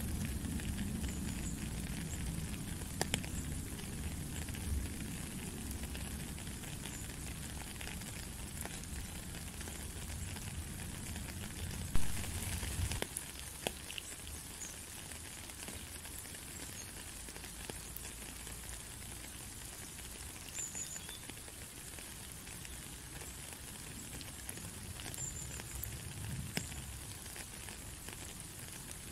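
Steady rain, a fine even hiss with scattered ticks of single drops. A low rumble under it stops about halfway through, and a single sharp click, the loudest sound, comes just before that.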